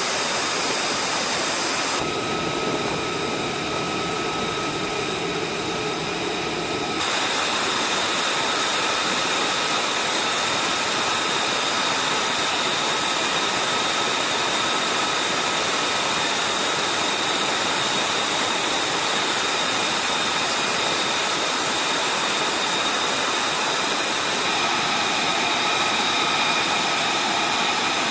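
F-35A Lightning II's turbofan running at ground idle during hot-pit refueling: a steady rushing noise with high steady whines. About two seconds in the sound turns duller for roughly five seconds, then the whine comes back.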